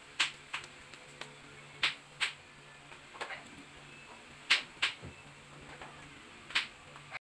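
Irregular sharp taps and clicks, a dozen or so spread over several seconds, the loudest about halfway through, over a faint steady low hum.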